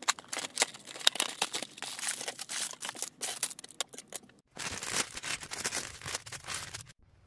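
Clear plastic LEGO parts bags crinkling and tearing as they are handled and pulled open: a dense run of sharp crackles, with a short break about four and a half seconds in.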